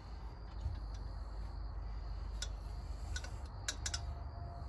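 A few sharp clicks and taps from handling a Honda XR250R front fork tube while it is wiped out with a rag, over a steady low hum.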